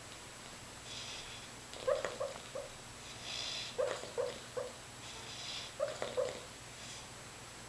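Sleeping Boston terrier barking in his sleep: three bouts of two or three short, soft woofs about two seconds apart, each preceded by a hissing breath in.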